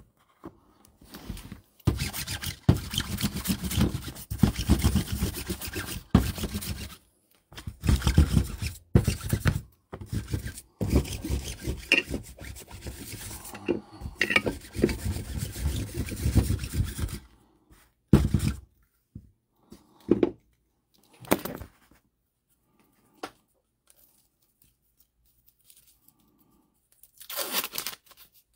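Sticky lint roller rolled back and forth over a card mat, its adhesive sheet crackling and rasping in long stretches with short pauses. It stops about seventeen seconds in, leaving a few scattered light knocks and rustles.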